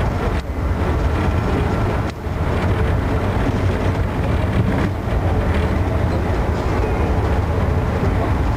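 Amtrak Northeast Regional passenger train in motion, heard from inside a coach: a steady, loud rumble of wheels on rail, dipping briefly twice in the first few seconds.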